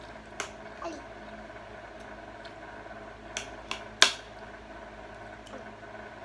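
Forks clicking against a ceramic bowl and plate while eating, a handful of sharp clinks with the loudest about four seconds in, over a steady low hum.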